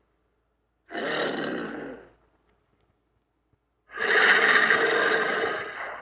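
Saltwater crocodile sound effect: two rough, raspy calls with a short silence between them. The second call is longer and louder than the first.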